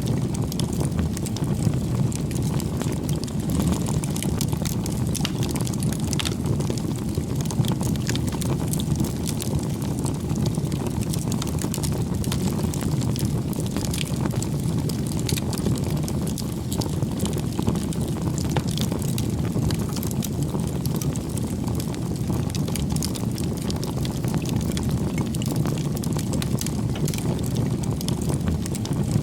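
Bonfire burning: a steady low rush of flames with frequent small, sharp crackles and pops of burning wood.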